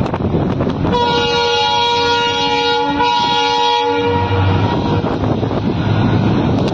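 Train horn sounding one long blast of about three seconds, several steady tones together, fading out about a second after. Wind buffets the microphone throughout.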